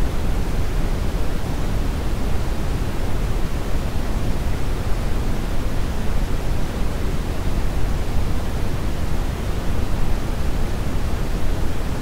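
Steady brown (red) noise, a calibrated test signal whose energy falls 6 dB per octave: a deep, even rushing with strong bass and little treble, unchanging throughout.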